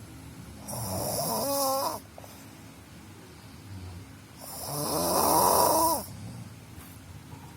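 A sleeping person snoring: two snores about four seconds apart, each lasting over a second and ending in a pitched note that rises.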